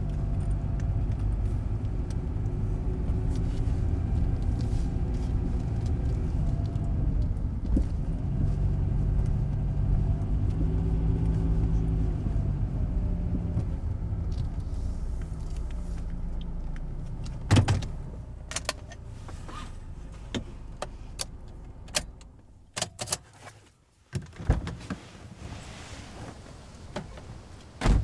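Car engine running at low speed with a steady hum that shifts in pitch, then dying away after about sixteen seconds. After it come a string of sharp clicks and knocks with keys jangling as the driver gets out, and a louder thump at the very end, like the car door.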